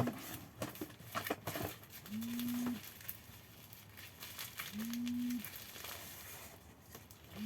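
Mobile phone vibrating with an incoming call: a low buzz of about two-thirds of a second, repeating every two and a half seconds or so, three times. Plastic packaging crinkles and clicks as it is handled in the first couple of seconds.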